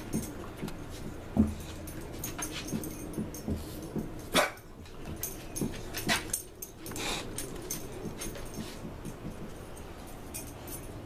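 English bulldog sniffing and snuffling with its nose along the porch floor, with a few short, sharper noises, the loudest about four and a half seconds in.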